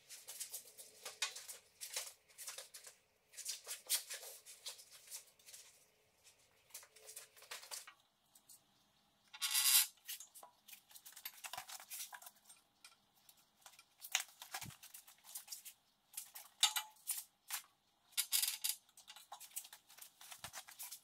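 Quiet, irregular metallic clicks, clinks and scrapes as an engine hanging from a shop engine crane is moved and guided down into a car chassis. There is one louder scrape about ten seconds in.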